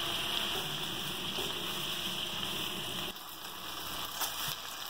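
Mixed vegetables and hoisin sauce sizzling in a hot wok over a gas burner, a steady hiss that falls quieter about three seconds in, with a light tap about four seconds in.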